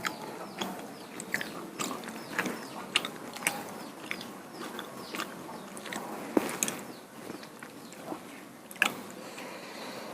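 Close-miked eating sounds: chewing and wet mouth clicks and smacks, coming irregularly about once or twice a second, as duck meat and rice-flour flatbread are eaten.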